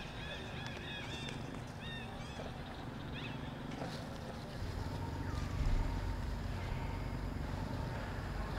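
A run of short, high, repeated chirping calls from an animal over a low rumble. The chirps fade out about halfway through, and the rumble grows louder from then on.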